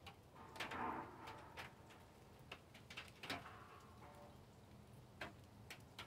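Light rain: irregular raindrop ticks and taps, close to the microphone, scattered through a quiet background, with one brief louder sound about a second in.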